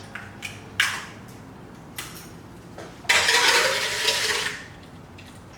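Two sharp knocks on a bowl, then about a second and a half of eggs being whisked with a utensil scraping around a big mixing bowl.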